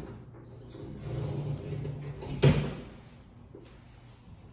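A door knocks once, sharply, about halfway through, as it is pushed open into the bathroom.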